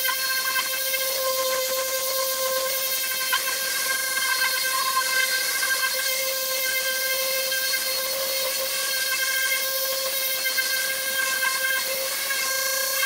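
Cheap electric random-orbital sander with a hook-and-loop sanding disc running steadily against a car hood's clear coat. Its motor gives a constant whine over the hiss of the abrasive on the paint.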